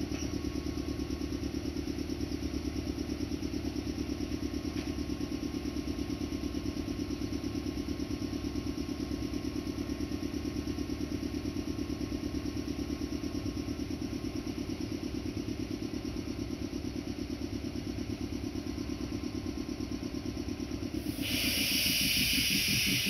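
A stationary Meitetsu electric train running its onboard equipment, a steady rapid mechanical chugging. About 21 seconds in, a loud, sustained hiss of air starts and continues on top of it.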